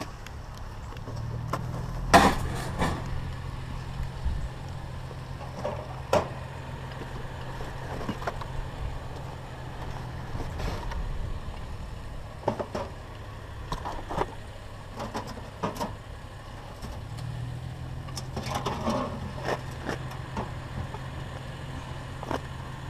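Knocks and clatters of curbside junk, a mailbox and its post, being handled and shifted, with one loud knock about two seconds in. A steady low hum runs underneath, stopping around ten seconds in and coming back around seventeen seconds.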